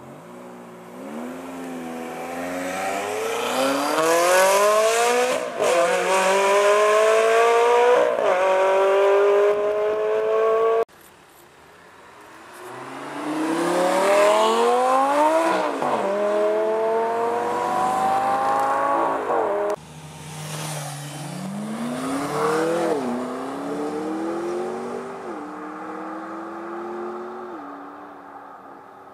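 Supercar engines accelerating hard, the pitch climbing in each gear with brief dips at the upshifts. The sound cuts off abruptly twice, about eleven and twenty seconds in, and starts again with another run; the last run fades as the car goes away.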